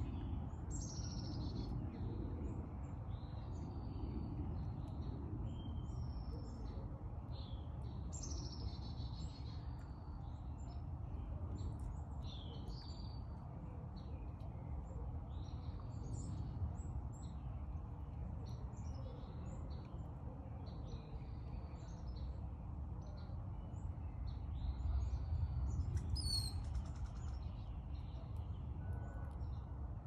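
Several songbirds chirping and calling, short repeated notes and quick downward-sliding whistles one after another, over a low steady rumble that swells briefly near the end.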